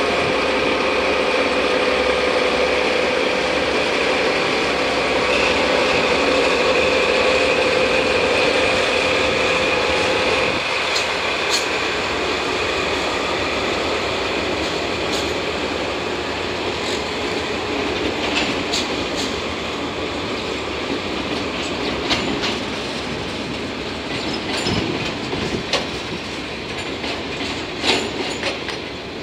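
A DD51 diesel locomotive drawing five ballast-laden Hoki 800 hopper wagons slowly through station trackwork during shunting. For about the first ten seconds a steady squealing tone runs over the rumble of the train. After that the wheels click over rail joints and points, more and more often near the end.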